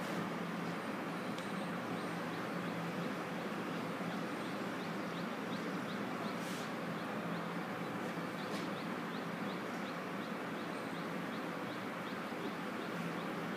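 Steady background noise with a faint even hum, and faint high chirps repeating about twice a second. Two brief sharp noises sound about two seconds apart, past the middle.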